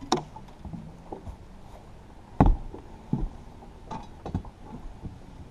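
A series of knocks and clatters of gear being handled on a bass boat's deck, the loudest about two and a half seconds in.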